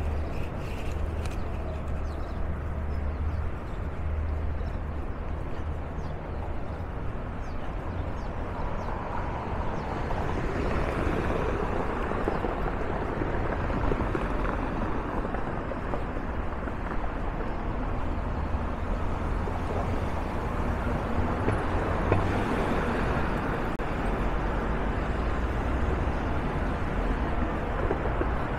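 Downtown street traffic: cars driving by over a steady low rumble, the traffic noise swelling about ten seconds in and staying up.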